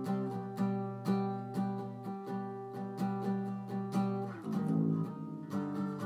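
Guitars strummed in a steady rhythm, an acoustic guitar among them, about two strokes a second. About four and a half seconds in the chord changes and the strumming turns faster and denser.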